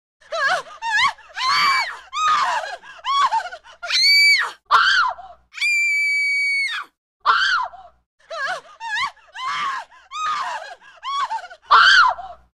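A woman's screams: a rapid string of short, high-pitched shrieks and cries with pitch sliding up and down, and one long, steady, very high scream held for about a second around the middle.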